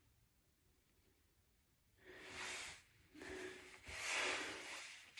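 Near silence, then from about two seconds in a woman's breathy exhales: three hissy puffs of air, the last and longest the loudest.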